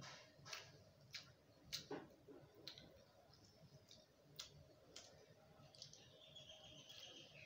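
Faint, irregular clicks of eating by hand: rice being mixed with the fingers on a metal plate and chewed.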